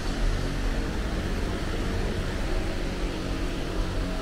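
Steady low rumble and hiss of an underground subway station platform.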